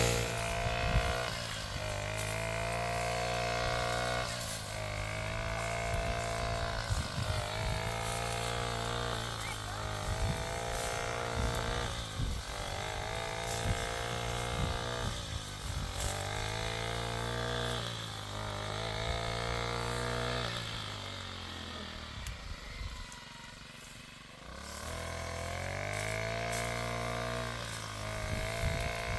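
An engine running, its pitch repeatedly sagging and recovering every two to three seconds, and dropping quieter for a couple of seconds about three-quarters of the way through.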